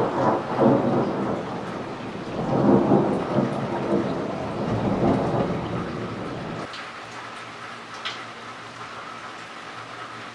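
Thunder rumbling in long waves over steady rain, loudest just after the start and again from about two and a half to five and a half seconds in, then dying away to the sound of rain alone.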